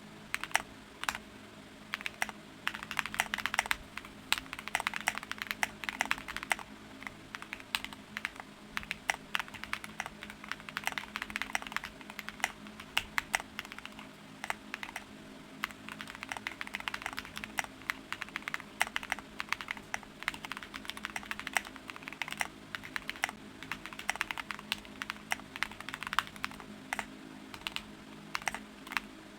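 Qwertykeys QK75 mechanical keyboard, all stock, being typed on: a continuous run of key clacks in quick uneven bursts.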